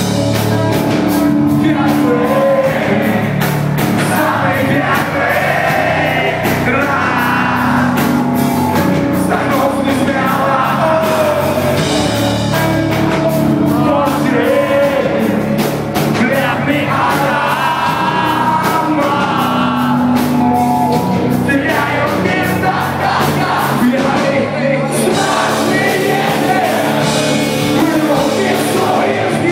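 Rock band playing live: a singer over guitars and a steady drum beat.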